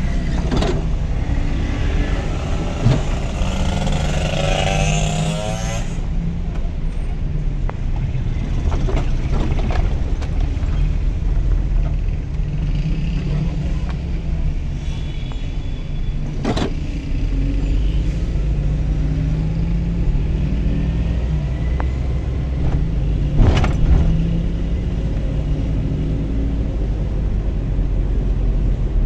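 Car engine and road noise heard from inside the cabin while driving at low speed, a steady low hum. A few brief knocks cut through it, the loudest late on.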